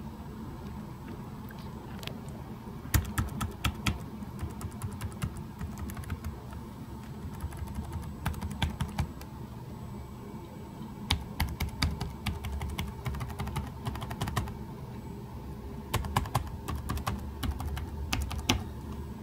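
EPSON Direct Endeavor NY40S laptop keyboard keys being pressed one at a time along the function-key row, giving sharp key clicks in quick runs with pauses between them.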